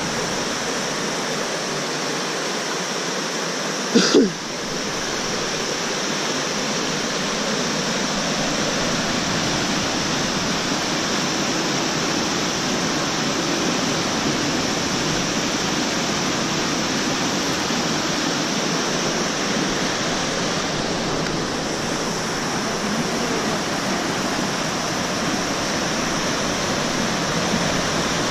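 Fast mountain river rushing steadily over rocks through whitewater rapids, with one brief sharp knock about four seconds in.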